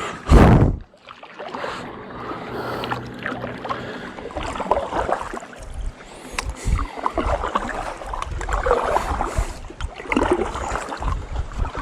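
Kayak paddling: the paddle blades dip and pull through the water every second or two, with swishing and dripping. A loud thump about half a second in.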